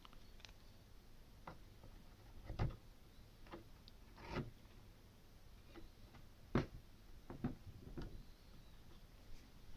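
Irregular small clicks and taps of computer hardware being handled as a RAM module is fitted into a motherboard's memory slot, with two louder knocks, about a quarter and about two-thirds of the way through.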